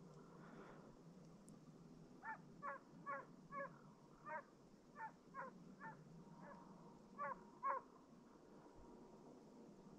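Russian hound giving voice on a hare's trail: about eleven short bays at roughly half-second intervals, starting about two seconds in and stopping near eight seconds. The bays are faint and carry from a distance.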